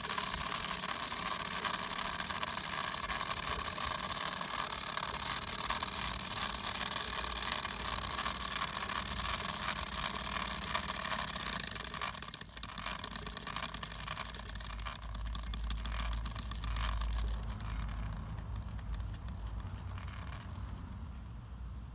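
Wilesco model steam tractor's small steam engine running fast, a rapid chuffing with hissing steam and light metallic rattle. About halfway through it drops abruptly to a slower, quieter running that fades toward the end as the steam valve is turned down.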